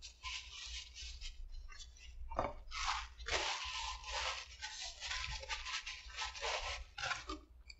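Paper napkin and fast-food wrapper crinkling and rustling in the hands, in irregular bursts.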